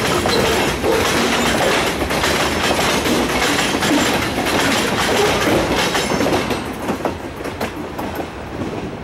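Freight train of covered hopper cars rolling past close by, steel wheels clacking over the rail joints. The sound fades over the last few seconds as the end of the train goes by.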